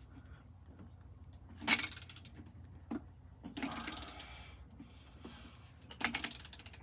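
Three short bursts of rapid metallic clicking and rattling from hand tools and metal parts being worked on an ATV's front suspension.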